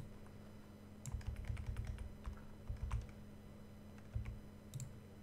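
Computer keyboard keys being pressed in a few short bursts of typing with pauses between, as code is edited.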